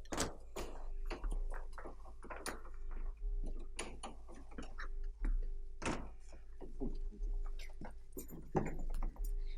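A run of irregular knocks and clatters, a few each second, with the loudest near the start and about six seconds in. Under them runs a steady low electrical hum from the old soundtrack.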